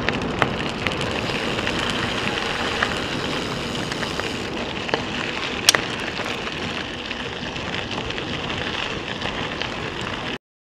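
Bicycle tyres rolling fast over a gravel forest road: a steady crunching hiss with scattered ticks and one sharp crack about halfway through, as grit and small stones hit the bike. The sound cuts off abruptly near the end.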